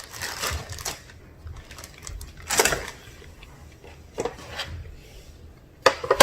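A utensil scraping and knocking against a mixing bowl and baking pan as cookie dough is scooped out, in several short bursts with sharp clicks.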